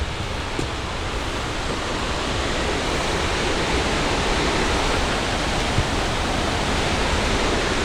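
Pecca Falls waterfall in full spate after heavy rain: a steady rush of falling water that grows a little louder over the first few seconds.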